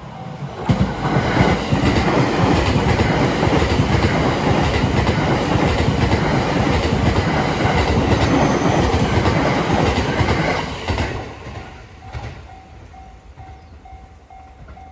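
A train passing over a level crossing, its wheels clattering loudly over the rail joints for about ten seconds before fading. A level-crossing warning bell dings in a steady quick rhythm before the train arrives and again once it has gone by, near the end.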